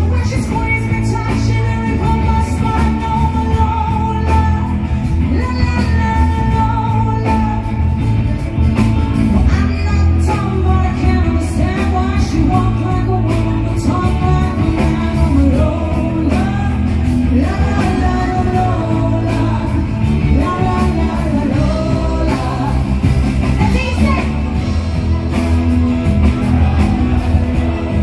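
A woman singing live into a microphone, holding long notes, backed by a band with drums, bass and keyboards.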